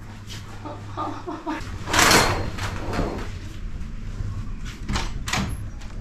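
Curtains being pulled back along their rail, with a short, loud rush of scraping noise about two seconds in. Near the end come a few clicks and knocks as a glass-paned wooden balcony door is unlatched and opened.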